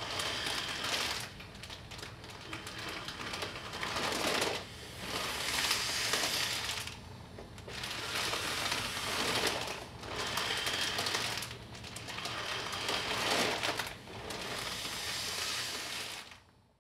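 Breathing through two dust masks joined by a clear plastic bag, the plastic crinkling as the bag fills and empties; noisy breaths alternate every two to three seconds, then fade out near the end.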